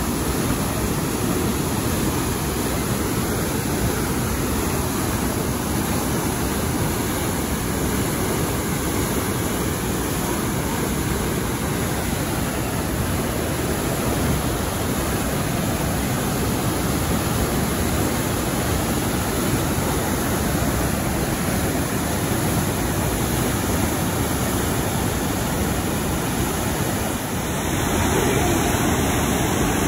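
Waterfall plunging through a narrow rock gorge: a steady, even rush of white water, a little louder near the end.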